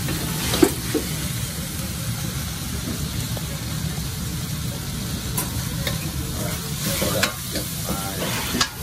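Metal ladle stirring and scraping food around a carbon-steel wok, with steady sizzling from the frying and a handful of sharp clanks of ladle on wok, over a steady low rumble.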